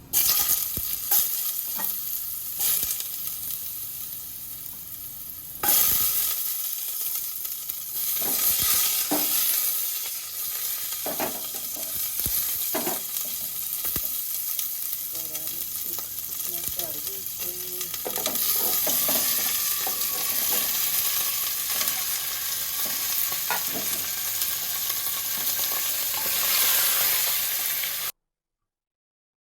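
Curry ingredients sizzling in hot oil in a pressure cooker while being stirred, the spoon knocking against the pot now and then. The sizzle jumps louder about six seconds in, and the sound cuts off abruptly about a second before the end.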